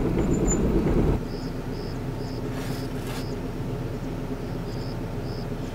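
Car running along a dirt road, a loud low rumble, which cuts off abruptly about a second in. A quieter steady low hum follows, with a short high chirp repeating about twice a second and two brief swells of hiss in the middle.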